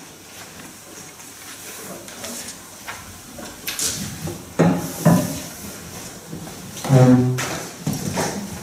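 Sparse contemporary music for cello and organetto: scattered scraping and creaking noises and short pitched sounds, with a brief low note with many overtones about seven seconds in as the loudest moment.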